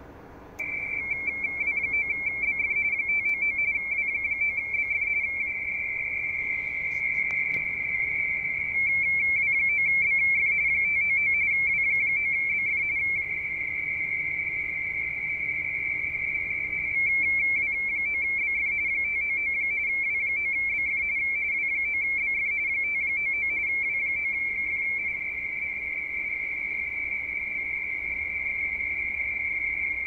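RTTY (radioteletype) data signal received on the 17 m band through an Icom IC-7600 transceiver: a fast, steady high warble of two closely spaced tones flipping back and forth, starting about a second in over band hiss.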